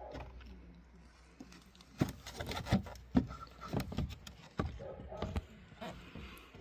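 Skoda Octavia III's plastic fog light trim panel being pulled off the front bumper by hand: a series of sharp plastic clicks and knocks as its clips let go and the panel rattles, thickest from about two to five and a half seconds in.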